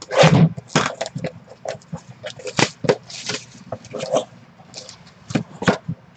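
Hands handling trading-card boxes and their packaging: irregular clicks, taps and rustles, the loudest just at the start.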